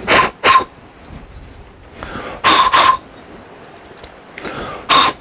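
Short, hard puffs of breath blown by mouth through a Dometic RV furnace's gas valve and burner supply tube, mostly in quick pairs every two to three seconds, each a whoosh with a hollow ring from the tube. The blowing clears out any dirt that could block the gas and keep the burner from lighting.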